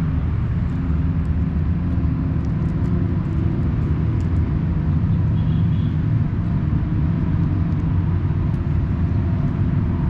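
A steady low rumble with faint, scattered crunching clicks over it: a kitten chewing dry cat food.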